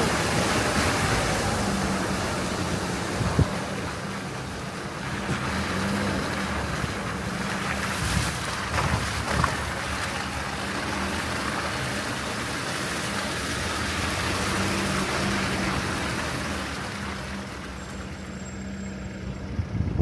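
Force Gurkha's diesel engine humming steadily while driving, heard from inside the cabin with road and wind noise, and a few light knocks.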